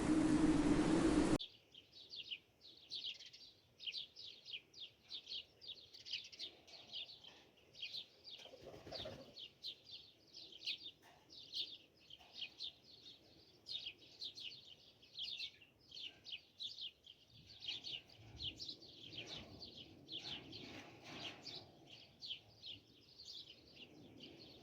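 Loud, even rushing noise for about the first second and a half, which cuts off abruptly. Then many small birds chirp continuously: quick falling chirps, several a second, high in pitch.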